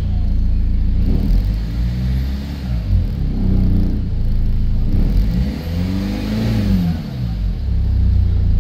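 Hyundai Santa Fe 2.2-litre four-cylinder turbo-diesel engine being revved from idle, heard from inside the cabin. Engine speed rises and falls several times, with the longest and highest rev about six seconds in, then it settles back to a steady idle near the end.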